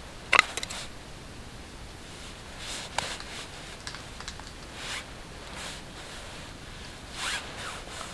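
A steel striker scraped along a ferrocerium (ferro) rod four times, short rasping strikes to throw sparks onto a hand-held tinder bundle; the first strike, about half a second in, is the loudest.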